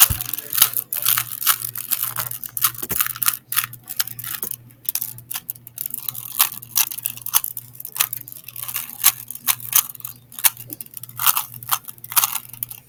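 A regular (non-speed) Rubik's cube being twisted by hand during a solve: rapid, irregular plastic clicks and scrapes as the layers turn, starting suddenly.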